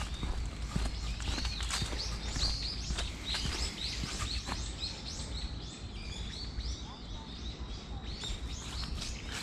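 Small birds chirping, a run of short, arched high notes repeated and overlapping through most of the clip, thinning out near the end. Under them, a steady low rumble and scattered light ticks like footsteps on a path.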